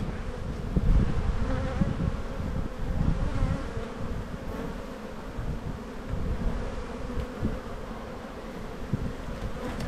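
Honey bees buzzing in a steady hum around an open hive as frames covered in bees are lifted out.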